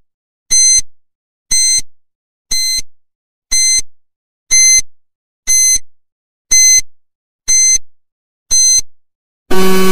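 Countdown timer sound effect: short high electronic beeps, one a second, nine in all. Near the end a louder, lower buzzer sounds, marking that the time is up.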